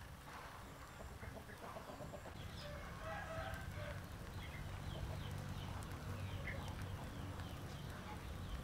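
Chickens clucking, with short higher calls scattered through, over a low steady hum.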